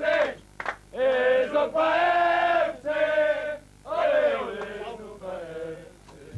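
A group of footballers chanting a football victory chant together, in about four drawn-out sung phrases with a long held note in the middle.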